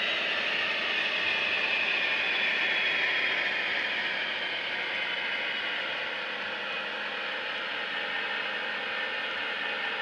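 DCC sound decoder in a model Class 56 diesel locomotive, playing Class 56 engine sound through an EM1 bass-enhanced speaker as the model runs. The engine sound is a steady, high-pitched drone whose pitch sinks slightly over the first few seconds and which grows a little quieter about halfway through.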